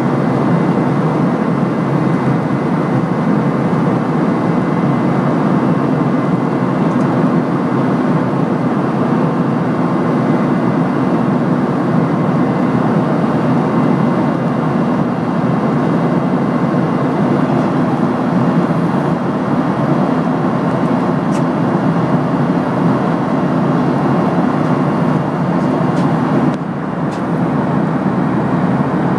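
Steady in-cabin noise of a Boeing 737-800 in flight: an even rush of jet engine and airflow noise, dipping briefly near the end.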